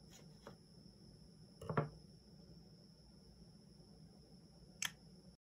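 Faint handling sounds of a smartphone held in the hands while taking a photo: a short rattling knock a little under two seconds in and a sharp single click near the end, over a steady low hum and a high electronic whine. The sound cuts off just before the end.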